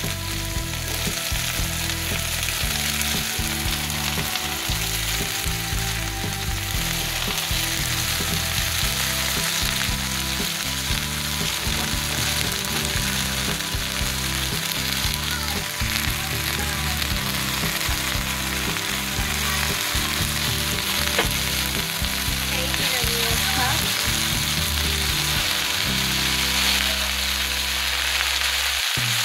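Oyster mushrooms and garlic sizzling steadily in hot olive oil in a frying pan.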